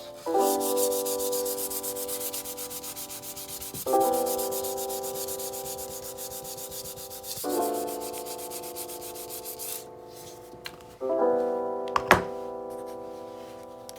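Fast, even back-and-forth rubbing strokes, like sanding, on the repaired flooring, stopping about ten seconds in, over background piano chords. A sharp knock sounds about twelve seconds in.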